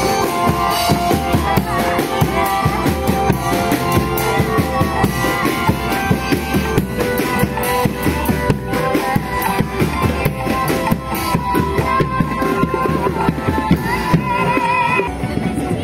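Parade drum group of large marching bass drums and smaller drums beating a fast, steady rhythm, with a melody playing over the drumming.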